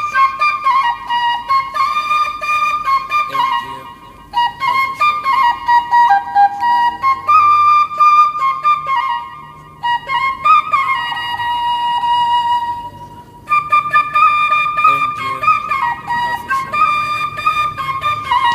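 Background music: a solo flute-like woodwind melody with sliding notes and a few short pauses.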